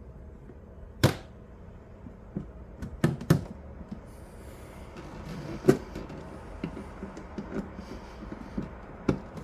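Sharp clicks and light knocks of a watch winder's housing parts being handled and worked apart, about five louder clicks among fainter small ticks.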